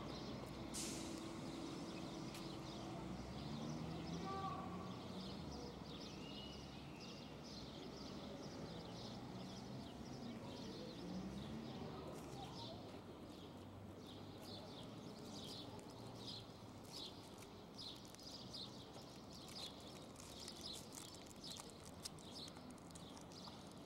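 Faint outdoor ambience: small birds chirping, thick and fast in the second half, with distant voices now and then.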